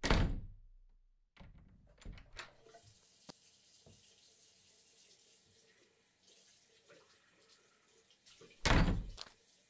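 Tap water running into a washbasin as a steady hiss. A loud thump opens it, and a second loud, muffled knock comes near the end.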